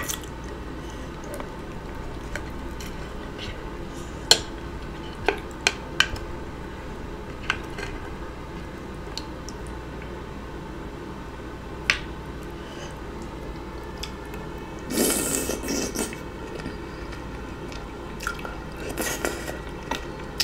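A person eating seafood boil: wet chewing and mouth smacking with scattered sharp clicks, and two longer squishy, wet bursts about fifteen and nineteen seconds in.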